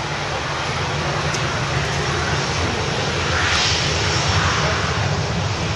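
Jet airliner engines: a loud, steady rumble with a rushing hiss that swells about three to four seconds in.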